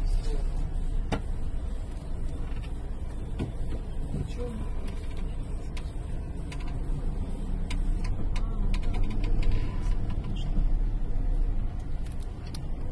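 A car heard from inside its cabin while driving: a steady low engine and road rumble, with scattered light clicks.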